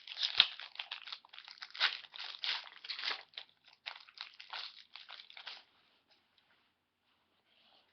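Trading-card pack wrapper being torn open and crinkled in the hands: a run of irregular crackles that stops about five and a half seconds in.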